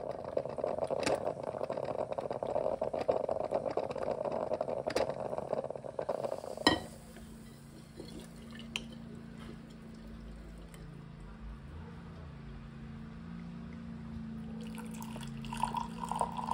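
Drip coffee maker brewing, a steady hissing noise that ends with a sharp click about seven seconds in, followed by a quieter low hum. Near the end, brewed coffee is poured from the glass carafe into a ceramic mug.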